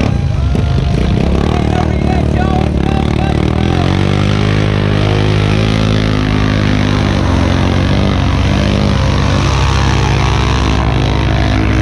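Big-bore ATV engine, 700cc-plus class, revving hard under load as it churns through deep mud. Its pitch climbs about four seconds in and then holds high and steady.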